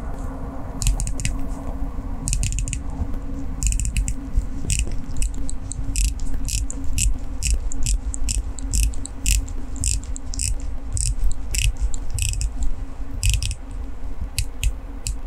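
Unidirectional dive bezel with a grey ceramic insert on an Oris Aquis Upcycle watch, turned by hand and ratcheting in runs of crisp, sharp clicks with short pauses between turns.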